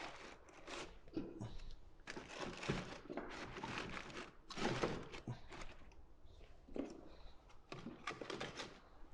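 Split firewood being laid onto kindling and crumpled newspaper in a wood stove's firebox: an irregular run of quiet wooden knocks and rustles.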